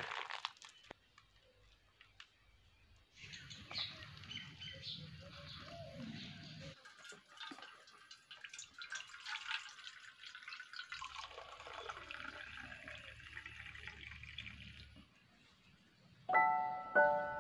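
Banana mash being strained through a metal strainer, with liquid trickling and dripping into a steel plate. Near the end a loud glockenspiel-like music tune begins.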